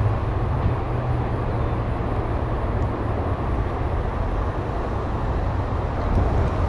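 Steady low rumble of wind buffeting the microphone, mixed with the hum of highway traffic close by.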